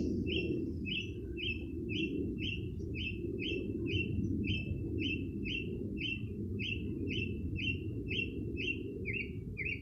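A bird calling one short, downward-slurred note over and over, evenly about twice a second, over a steady low rumble.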